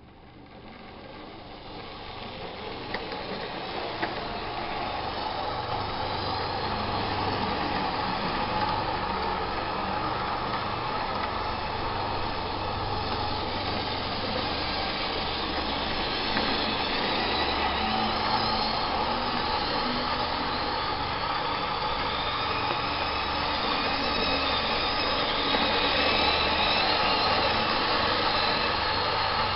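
A pair of Lima O-gauge (1:45) BB 67001 SNCF diesel model locomotives running double-headed with a train of container wagons on sectional track. Their electric motors whirr and the wheels rumble over the rail joints. The sound grows louder over the first few seconds, then runs steadily.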